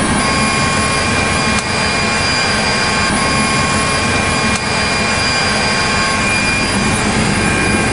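Helicopter turbine engine and rotor running steadily, heard from inside the aircraft: a constant loud noise with a steady high whine on top. The noise dips briefly twice, each time with a faint click.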